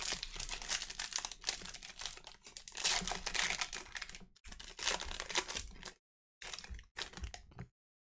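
Foil wrapper of a trading-card pack being torn open and crinkled by hand: a dense crackle that breaks off briefly about four and a half seconds in, then two short rustles near the end.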